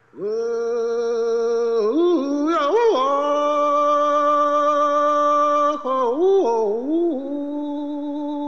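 A singer's wordless blues moan, long held notes that bend and waver in pitch about two and six seconds in, in a small room.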